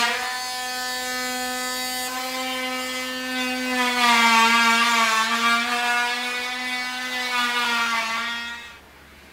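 Small trim router running at a steady high whine as it is run along the plywood edge banding of a workbench top; the pitch sags slightly under load about four seconds in, and the motor stops shortly before the end.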